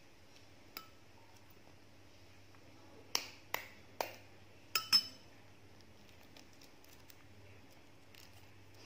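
Quail egg shell being cracked by tapping: one light tap, then five sharp taps in quick succession, the last ones with a brief clinking ring. Faint crackle of the shell being picked off near the end.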